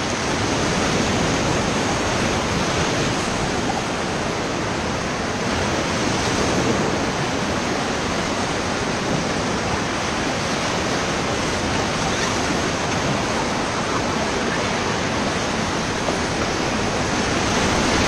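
Steady, loud rush of whitewater rapids churning around an inflatable raft as it runs through them.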